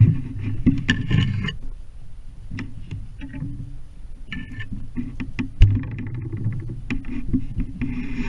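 A hunter pushing through snowy brush and dry leaves: irregular crunching footsteps and twigs scraping, with knocks of handling noise, the loudest a sharp knock about five and a half seconds in.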